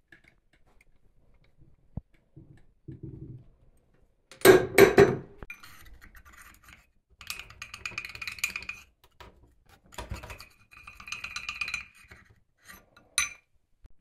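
Metal clanking and scraping as a split steel pipe sleeve is pressed to size over a scrap of axle shaft in a hand arbor press. There are two loud knocks about four and a half seconds in, then stretches of ringing scraping and clinking.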